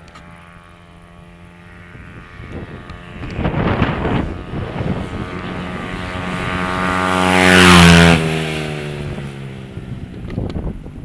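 A 70cc dirt bike's engine approaching and passing close by. It is loudest about eight seconds in, then its pitch drops as it rides away. There is a brief rush of noise about four seconds in.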